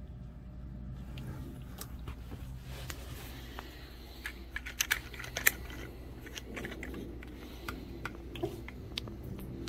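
Irregular light clicks and taps, thickest from about three to six seconds in, with the sharpest tap about five and a half seconds in: eastern box turtles and American toads moving and feeding on the hard plastic floor of a tub. A low steady hum runs underneath.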